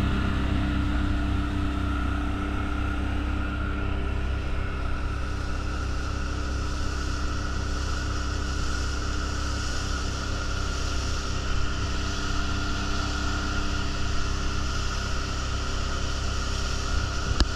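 Outboard motor running steadily under way, with a fast low throb and a steady rush of wind and water.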